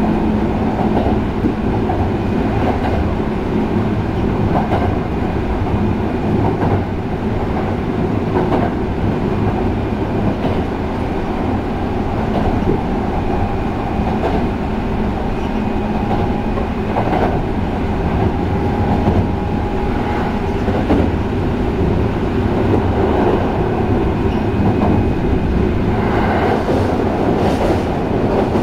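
Sanyo 5030 series electric train running along the line, heard on board: a steady rumble of wheels on rail with repeated clicks over rail joints and a faint whine from its Fuji Electric VVVF-IGBT traction inverter and motors.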